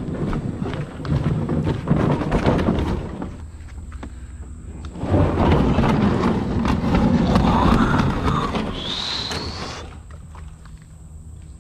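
A loaded canoe hull being dragged over a dirt and leaf-covered bank and slid into a creek: scraping with knocks and rattles, then a longer, louder grinding slide with a brief squeal that stops suddenly near the end.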